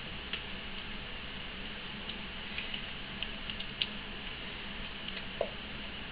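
A silicone spatula scraping soap batter out of a plastic pitcher: a few scattered light clicks and soft taps, over a steady low hum.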